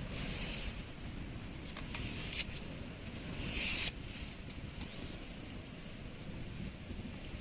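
Wind rumbling on the microphone in a strong wind, with a few light clicks and one loud short hiss about three and a half seconds in.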